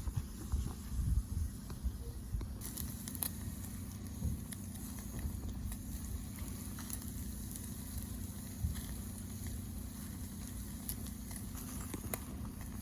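Wood fire crackling in a fire pit stand, with sparse sharp pops, over a steady low rumble.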